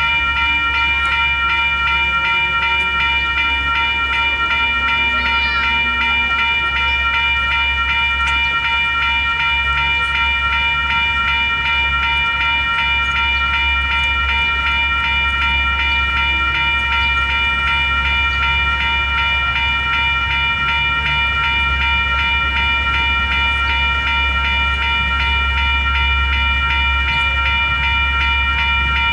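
Western Cullen Hayes electronic level-crossing bells ringing steadily, the crossing's warning signal that a train is coming. A steady low rumble runs underneath.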